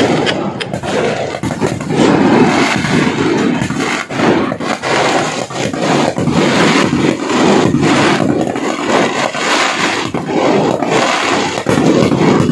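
A dense barrage of fireworks going off: many overlapping bangs and crackles with no real pause, merging into a continuous roar.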